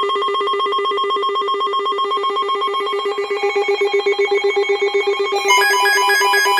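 Emergency alert warning tone: a loud, rapidly pulsing, bell-like electronic tone. A second, higher tone joins about two seconds in, and a quick pattern of higher beeps is layered on near the end.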